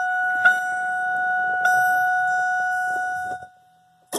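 Car's electronic warning chime sounding with the key in the ignition: a steady two-pitch tone that pulses about once a second, then cuts off about three and a half seconds in.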